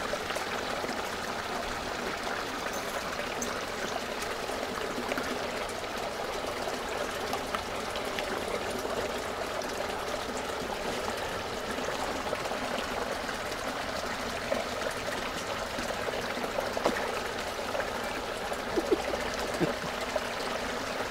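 Steady trickle of water running into a small garden koi pond, with a few short clicks near the end.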